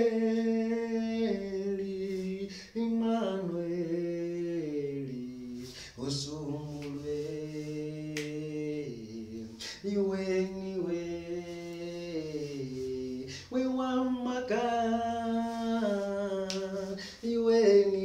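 A man singing a worship song unaccompanied, holding long notes that step down in pitch through each phrase, with short breaks between phrases and a few sharp clicks.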